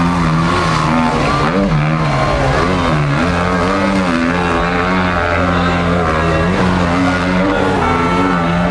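Enduro motorcycle engine revving hard, its pitch repeatedly rising and falling as the throttle is worked.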